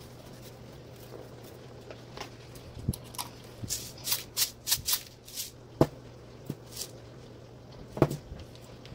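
Seasoning shakers being shaken: a quick run of rattling shakes from about four to five and a half seconds in. There are a few sharp knocks as well, the loudest near six and eight seconds in.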